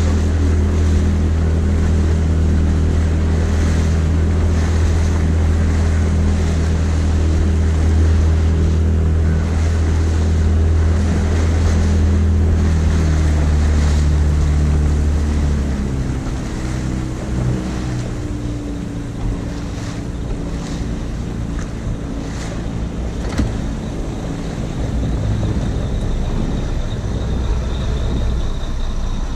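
A small boat's motor running steadily under way, then throttled back about halfway through to a lower, quieter run as the boat slows. Wind and water noise run underneath.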